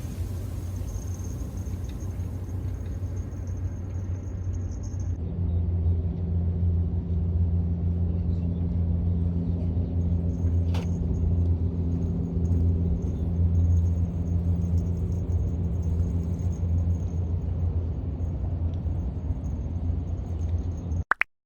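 Low, steady engine rumble with a droning hum that settles in about five seconds in, one sharp click about halfway, then cuts off suddenly near the end.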